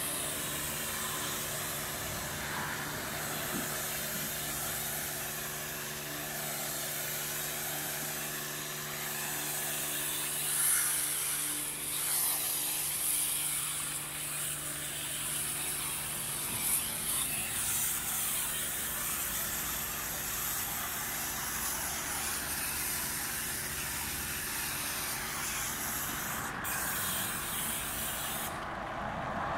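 Pressure-washer lance spraying chemical cleaner onto a truck trailer: a steady hiss of spray over a steady low hum. The hiss cuts off near the end.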